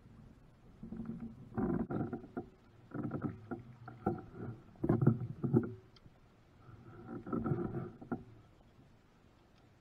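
Kayak being paddled: four bursts of paddle strokes in the water, about two seconds apart.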